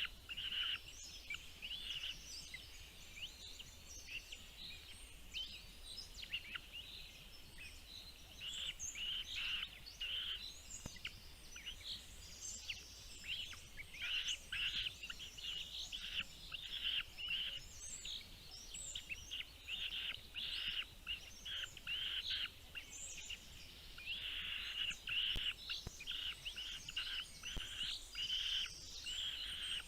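Small birds chirping in quick, high peeps, sparse at first and busy and near-continuous from about eight seconds in.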